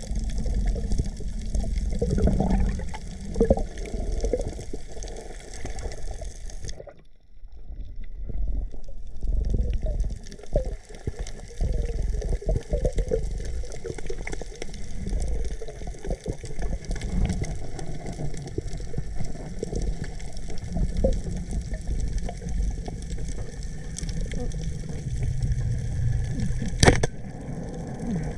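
Sea water sloshing and gurgling around a camera in the water, a dense, muffled wash. It briefly dips near seven seconds in, and a single sharp click comes near the end.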